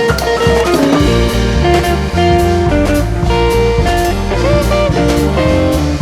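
Instrumental background music with guitar and a steady drum beat.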